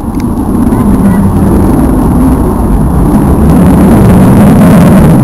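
Aircraft flying past: loud, even engine noise without a clear pitch, swelling about a second in and staying loud.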